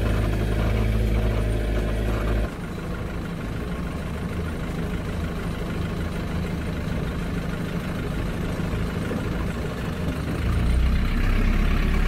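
Small river ferry boat's engine running steadily. It is throttled back sharply about two and a half seconds in and picks up again near the end as the boat comes in to the pier.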